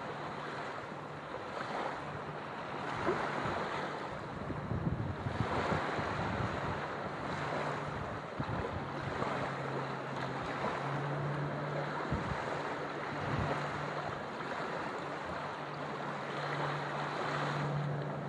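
Small surf breaking and washing up on a sandy shore, the wash swelling and easing every few seconds, with gusts of wind buffeting the microphone.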